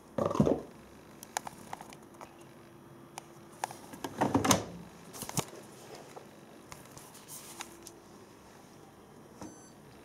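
Handling clatters and rustles around a washing machine, loudest just after the start and again about four seconds in, with scattered small clicks. Near the end a short electronic beep from the Hoover Dynamic Next's control panel as the programme dial is turned.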